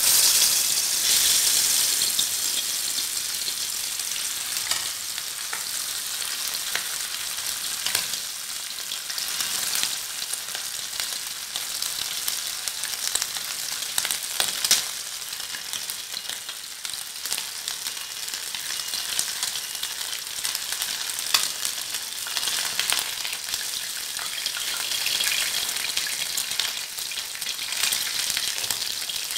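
Whole fish frying in hot oil in a shallow pan: the sizzle starts suddenly and is loudest as the fish goes into the oil, then settles into a steady sizzle with occasional sharp pops.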